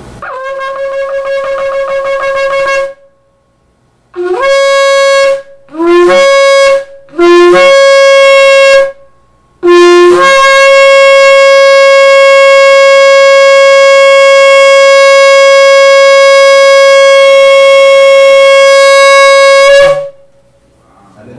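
Shofar (ram's-horn trumpet) being blown in a sequence of calls. First comes a fluttering blast of about three seconds, then three short blasts, each jumping up from a lower note. Last comes one long held blast of about ten seconds.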